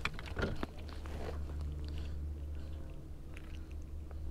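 Soft clicks and rustles of hands unhooking a small white bass, most of them in the first second and a half and a few faint ticks later, over a low steady hum.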